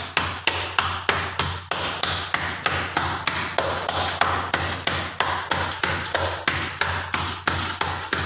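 A palm patting maize-flour roti dough flat through a plastic sheet on a steel plate: a quick, even run of slaps, about four a second.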